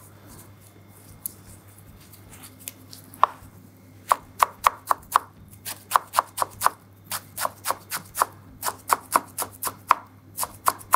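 Japanese kitchen knife chopping purple shiso leaves on a cutting board. A few scattered taps come first. From about four seconds in there is a quick, steady run of knife strikes, about four or five a second.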